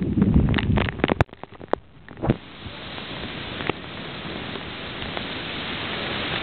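Thunderstorm wind buffeting the microphone with a low rumble, cutting off abruptly about a second in. A few sharp clicks follow, then a steady hiss of rain that slowly grows louder.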